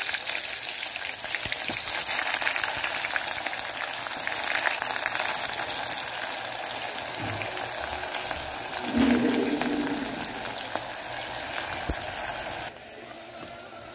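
Chopped onions sizzling and crackling in hot oil in a stainless-steel pot, freshly added and starting to fry. A brief low hum comes about nine seconds in, and the sizzling cuts off sharply near the end.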